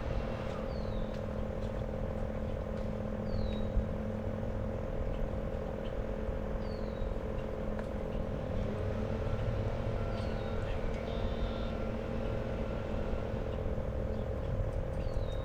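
Steady outdoor ambience: a continuous low hum with short, high chirps falling in pitch every couple of seconds.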